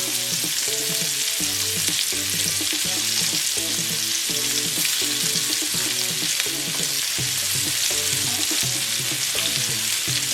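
Sliced onions sizzling as they fry in melted butter in a pan, stirred now and then, with a steady frying hiss. Background music with repeating notes plays underneath.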